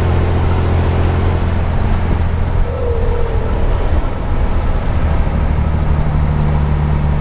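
Scania 112 truck's 11-litre six-cylinder turbo diesel running under load on the road, heard inside the cab as a steady low drone with road noise. The drone breaks up briefly about three seconds in, then settles again.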